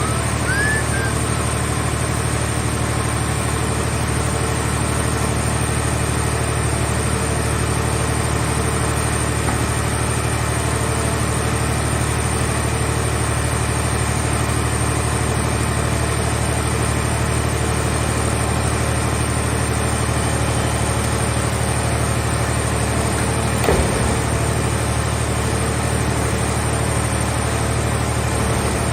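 Car-shell baler's hydraulic power unit running with a steady low hum, with a single sharp knock about 24 seconds in.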